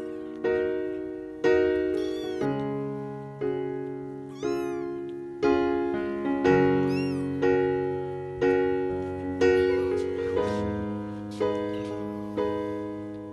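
Gentle piano music with a note or chord struck about once a second, over which a British Shorthair kitten gives high meows about three times.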